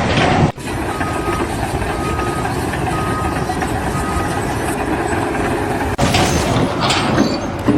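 Heavy vehicle engine running, with a reversing alarm beeping four times at about one beep a second.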